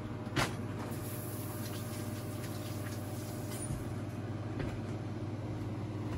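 Steady low mechanical hum, with a single sharp knock about half a second in.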